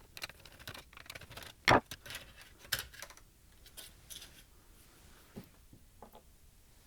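Scattered light clicks and taps of screws being taken out of a TV's power supply board and the board being handled, with one louder knock a little under two seconds in.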